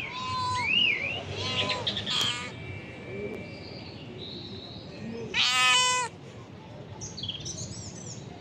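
Hungry mother cat meowing several times, with one long, loud meow about five seconds in.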